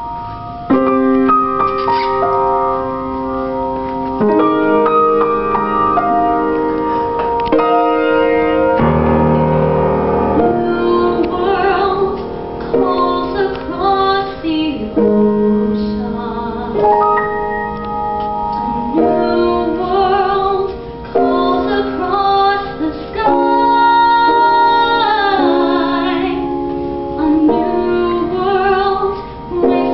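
Piano playing held chords, joined about ten seconds in by a small vocal ensemble singing with vibrato over the piano accompaniment.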